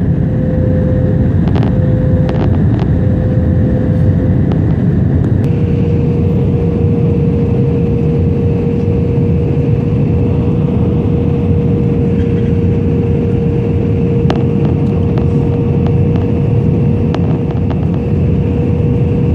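Jet airliner cabin noise: a loud, steady roar of engines and airflow with a steady hum near 500 Hz, whose pitch shifts slightly about five and a half seconds in. A few faint clicks sound in the first few seconds.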